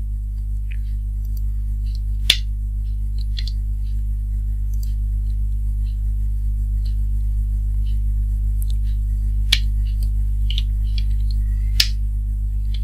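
Steady low electrical mains hum, with computer keyboard keys clicking at irregular intervals as code is typed; a few keystrokes stand out louder, about two, nine and a half and twelve seconds in.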